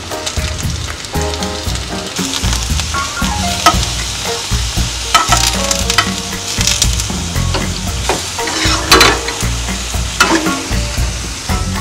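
Eggplant strips sizzling as they fry in oil in a nonstick frying pan, with a few sharp clicks of metal tongs against the pan as the pieces are turned.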